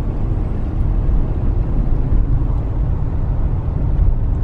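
Steady low rumble of road noise inside a moving car's cabin.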